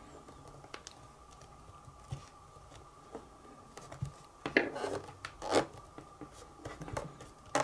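Speaker grille cover being pressed onto a Logitech Squeezebox Boom internet radio: scattered light clicks and scrapes of the cover seating, with a few louder knocks about halfway through and again near the end.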